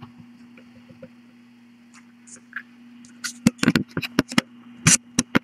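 A low steady hum, then from about three seconds in a quick, irregular run of about ten sharp clicks and knocks.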